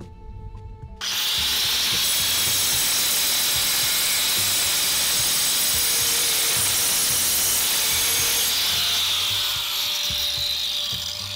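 Angle grinder cutting aluminium angle stock: it starts about a second in with a loud, steady high-pitched whine and hiss, then eases off and fades near the end.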